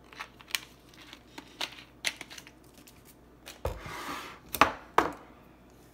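Kitchen handling sounds while coleslaw ingredients are added: scattered light clicks and knocks of containers and utensils, a short rustling burst about four seconds in, then two sharp clicks.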